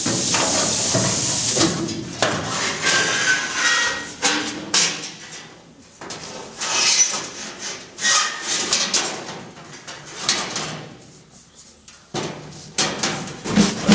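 Irregular hammer-like knocks and clatter of hand work on the car's metal body, mixed with short bursts of hiss.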